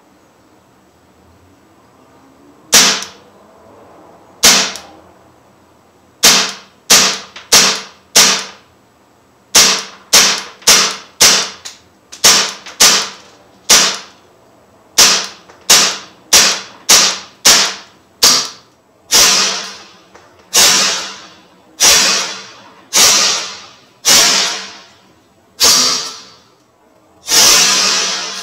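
Umarex Legends M712 CO2 blowback BB pistol fired in semi-auto, shot after shot, to empty the magazine. Each shot is a sharp crack with the slide blowing back. The shots start about three seconds in and come at an uneven pace, at times two a second and at times a second or two apart. The later shots trail off longer.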